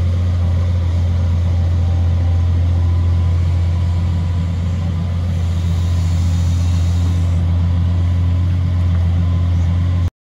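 Fiat-Hitachi excavator's diesel engine running steadily with a deep even hum, cutting off abruptly about ten seconds in.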